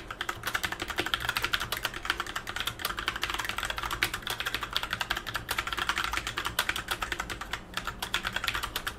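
Fast, continuous typing on an SPC Gear GK550 mechanical keyboard with Kailh Brown switches: a dense, even patter of key clicks. These tactile switches are on the louder side but lack the sharp clatter of Blue switches.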